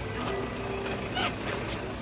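Tractor engine running steadily while hay bales are being moved, with a brief sharp clatter about a second in.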